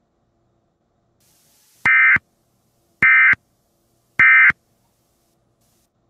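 Emergency Alert System end-of-message signal: three short, identical bursts of SAME digital data tones, about a second apart, marking the end of the alert.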